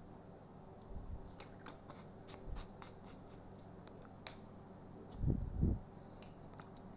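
Small clicks and taps of laptop parts and tools being handled during a processor swap, about a dozen light ticks in a row, then two dull thumps a little past five seconds in and a few more clicks near the end.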